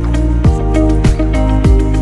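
Background music with a steady beat: a deep drum that drops in pitch about every 0.6 s under sustained notes.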